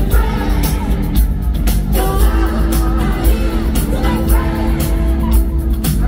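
Live pop concert music played loud over an arena sound system, with heavy bass, a steady drum beat and a lead vocal singing.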